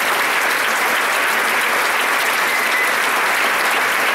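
Audience applauding steadily, a dense continuous clapping from a large crowd.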